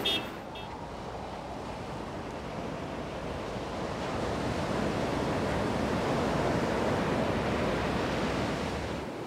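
Ocean surf breaking and washing up a sandy beach, a steady rush that swells to its loudest about six to seven seconds in and eases near the end.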